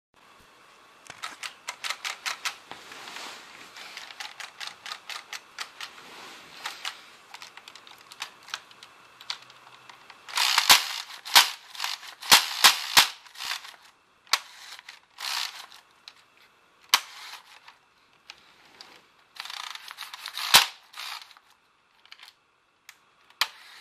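Lego Technic gun mechanism driven by XL motors: motors whirring through a plastic gear train with rapid clicking, and sharp snaps of the firing mechanism. The snaps are loudest and closest together from about ten to thirteen seconds in, then come in scattered bursts.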